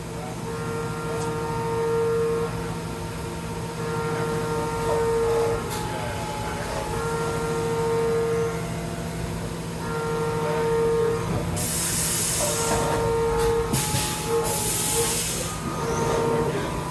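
Haas VF-2SS CNC vertical mill running: a steady hum under a whine that comes and goes in stretches of about a second. Two loud bursts of hiss come about twelve and fourteen seconds in.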